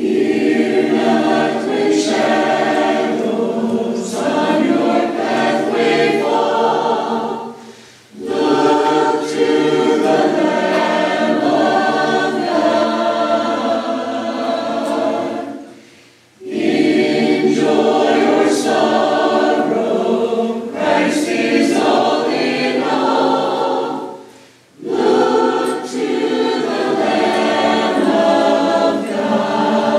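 A church choir singing a hymn-like anthem in four long phrases, with a short breath between each about every eight seconds.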